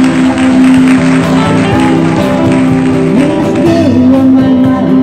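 Live band music from electric guitars and a drum kit, playing an oldies pop song steadily.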